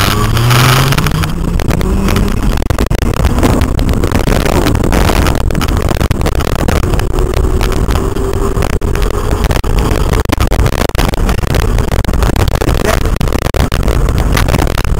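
Crystalyte 5303 hub motor whining as the e-bike accelerates hard, its pitch rising with speed over the first seconds and then creeping up more slowly. Heavy wind noise on the microphone runs underneath.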